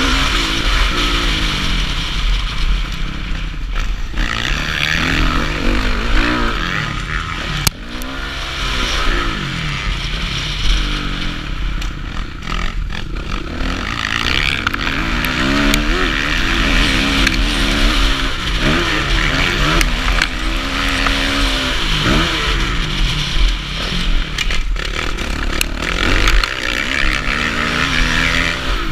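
Kawasaki KX450F single-cylinder four-stroke motocross engine revving up and falling back again and again as the rider accelerates, shifts and backs off around a dirt track, heard up close from the rider's helmet camera with a steady rush of wind. There is a sharp knock just before eight seconds in.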